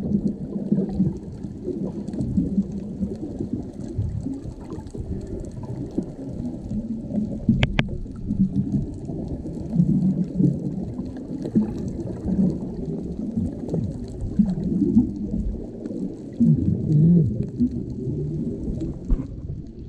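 Muffled underwater water noise, an uneven low rumbling and gurgling that swells and fades, with a sharp double click about eight seconds in.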